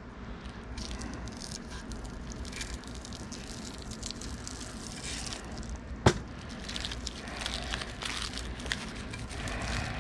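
Plastic wrap crinkling and crackling as it is cut and peeled off parts, with many small ticks and one sharp click about six seconds in.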